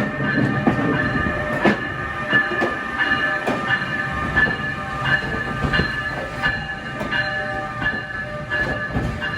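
Passenger train on the Northeast Corridor passing close by: a steady whine of several tones over a low rumble, with sharp clicks of wheels over the rails every half second or so.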